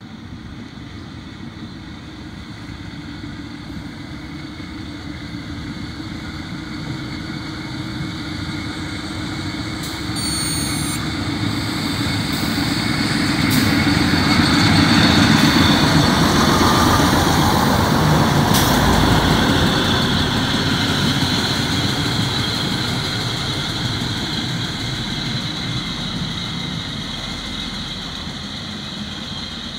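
An ALn 668 diesel railcar approaching, passing close and running away: its diesel engine and wheels build to a peak in the middle and then fade. A short high-pitched squeal comes about ten seconds in.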